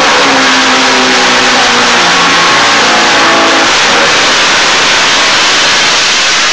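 Arctic Cat drag snowmobile's multi-cylinder two-stroke engine running very loud through its expansion-chamber pipes. It is revved on the throttle, so its note rises and falls.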